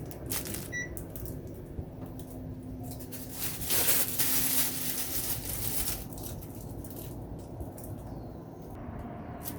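Split air conditioner being switched on: a short electronic beep about a second in, then a steady hum and a louder rush of air for a second or two around the middle.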